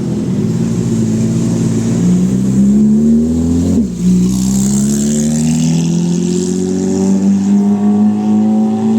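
Lamborghini Aventador SV's V12 engine accelerating, loud. Its pitch climbs, drops sharply at a gear upshift about four seconds in, then climbs again more slowly in the next gear.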